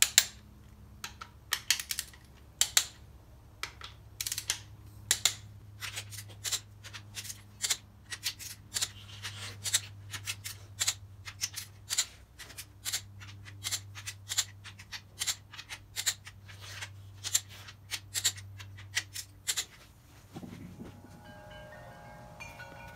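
Click-type torque wrench clicking again and again, about two sharp clicks a second, as each cylinder head bolt on a 383 big-block is rechecked at 70 foot-pounds, over a low steady hum. Chiming background music comes in near the end.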